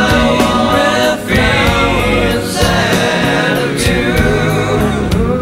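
Background music: a choir of voices singing over instruments with a steady beat.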